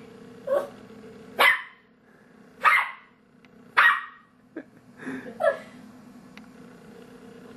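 Dachshund barking at his own reflection in a glass cabinet door: about six sharp, separate barks over roughly five seconds.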